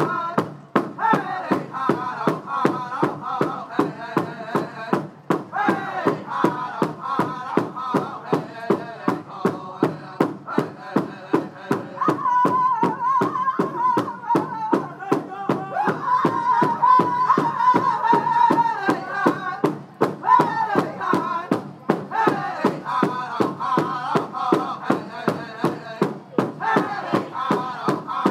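Powwow drum group singing in high voices over a steady unison beat on the big drum, about two to three strikes a second.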